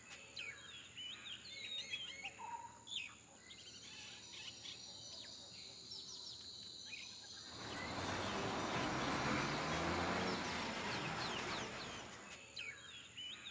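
Birds chirping in the open air over a thin steady high tone. About halfway in, a broad rushing noise swells for about five seconds and then fades.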